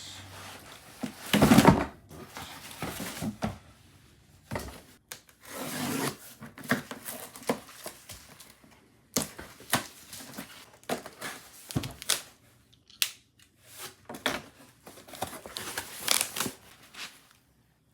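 Cardboard box and packaging being handled and opened: irregular bursts of tearing, rubbing and crinkling with small knocks, the loudest about a second and a half in.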